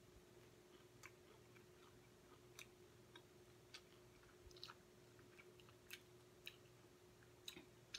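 Faint, scattered clicks and smacks of chewing fried chicken wings and pulling the meat apart, over a faint steady hum.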